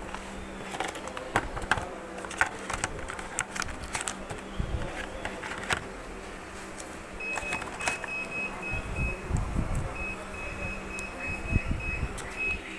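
Clicks, knocks and rubbing from handling while the camera is covered, over a steady low electrical hum. From about seven seconds a high thin electronic tone sounds in short broken beeps.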